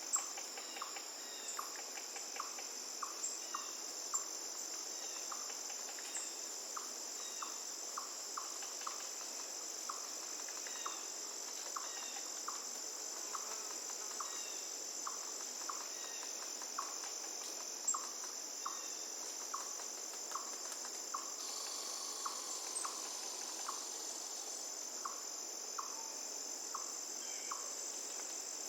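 Steady, high-pitched insect trill, cricket-like, with a short mid-pitched call repeating about every two-thirds of a second over a faint even hiss of flowing water.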